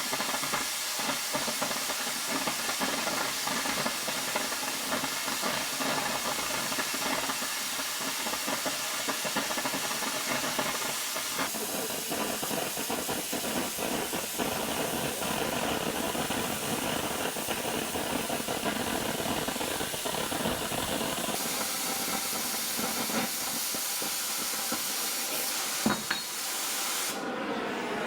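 A metal-cutting tool hissing steadily as it cuts and cleans up the cylinder pockets in thick steel fork hooks, with a single sharp metallic knock near the end.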